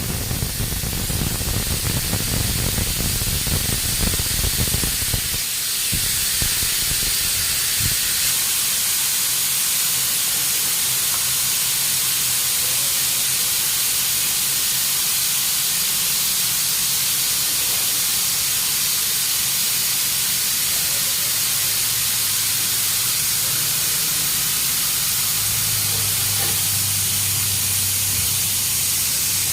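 Steady hissing noise, with a low rumble in the first five seconds or so that then drops away.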